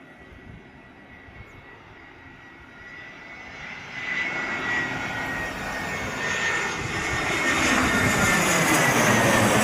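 Batik Air jet airliner on landing approach: engine noise swelling steadily louder as it comes closer, loudest near the end, with a thin high whine held throughout.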